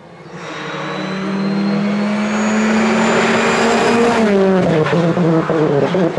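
Citroën C3 Rally2 rally car at full throttle, its turbocharged four-cylinder engine getting steadily louder as it approaches. It passes close by about four seconds in, and the engine note falls in pitch as it goes away.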